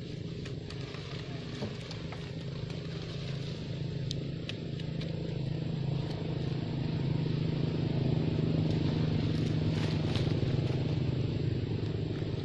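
A motor vehicle engine running, a low steady hum that grows louder over several seconds and then holds, with a few faint clicks.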